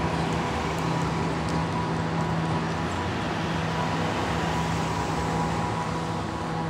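City street traffic noise: a steady hum of car engines and tyres from passing vehicles.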